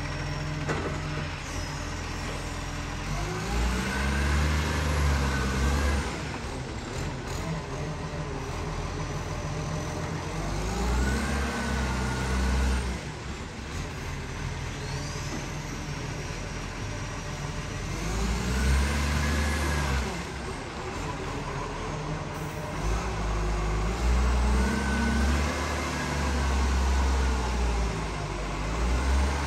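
Iveco side-loader garbage truck's diesel engine turning around in a tight space, revving up and easing off four times over a steady low idle.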